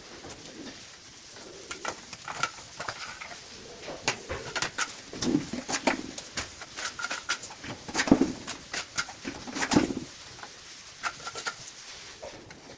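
Low cooing calls of a bird, several times, with many sharp clicks and taps in between.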